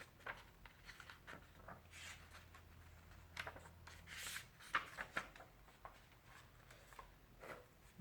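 Faint rustling and handling of a paperback picture book's pages, with scattered soft rustles and small clicks. The sharpest click comes a little past halfway.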